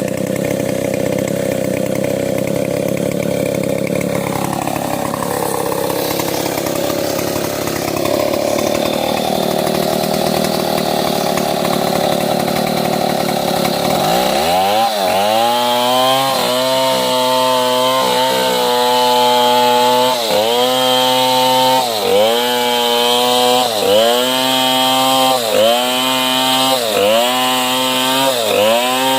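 Chainsaw running hard while ripping a medang log lengthwise. At first it runs at a steady pitch; about halfway through, its engine pitch starts dipping and recovering about every second and a half as the saw loads and frees in the cut.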